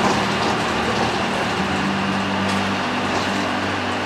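Steady engine drone with a low hum inside a moving passenger vehicle.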